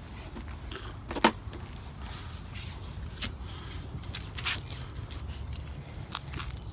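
Sponge wiping a wet car body: a few short rubbing and scuffing noises, the sharpest about a second in, over a steady low rumble.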